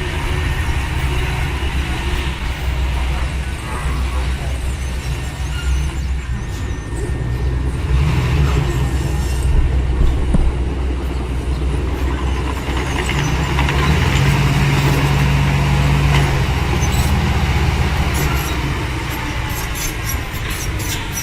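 Diesel engines of heavy earthmoving machinery, a bulldozer and dump trucks, running steadily. The engines work harder about a third of the way in and again about two-thirds through, where a steady low drone holds for a couple of seconds.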